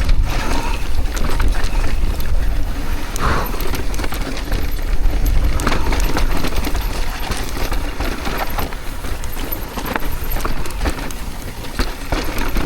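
Mountain bike descending a dry, loose trail: tyres crunching over dirt and rock with constant irregular rattles and knocks from the bike. Heavy wind rumble on the microphone underneath.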